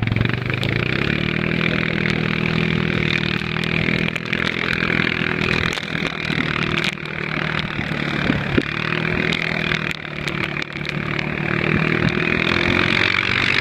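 An engine running steadily; its pitch rises about a second in and then holds, over a steady hiss.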